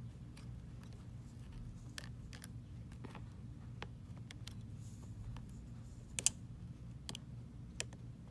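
Scattered small clicks of iPhone X flex-cable connectors being pressed down onto their sockets, the sharpest about six seconds in, over a steady low hum.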